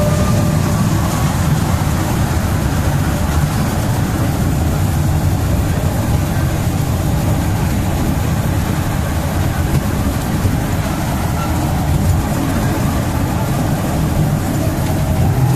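Small amusement-park ride train running along its track: a steady low rumble of its drive and wheels.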